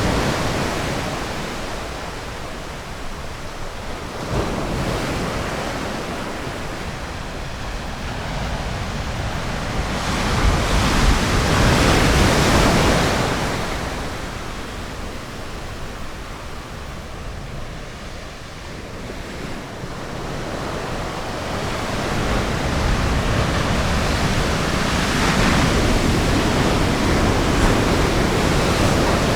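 Ocean surf: waves breaking and washing ashore in slow surges that swell and fade, the loudest about eleven to thirteen seconds in, with another building through the last several seconds.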